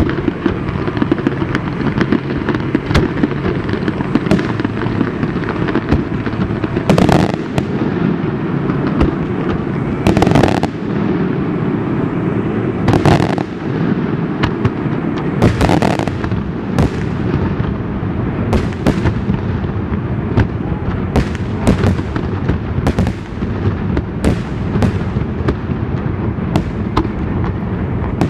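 Aerial fireworks display: a steady crackle of bursting shells, cut by many sharp bangs that come closer together in the last ten seconds or so.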